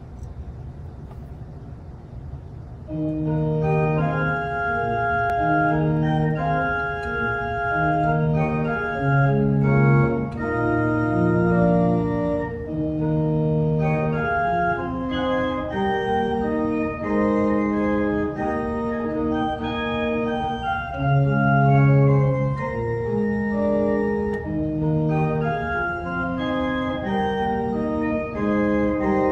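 Organ playing slow, sustained chords, the notes held steady and changing about once a second; the playing starts about three seconds in.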